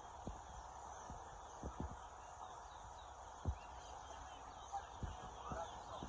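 Caged towa-towa finches singing faintly, short scattered chirps and whistles. A few brief low thumps break in, the loudest about three and a half seconds in.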